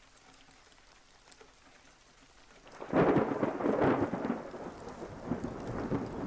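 Thunderstorm: faint rain, then about three seconds in a loud thunderclap breaks and rumbles on with crackling.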